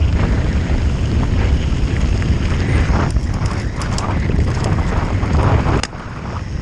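Wind buffeting the microphone of a camera on a moving mountain bike, a loud rumbling rush with scattered rattling clicks. It drops sharply near the end.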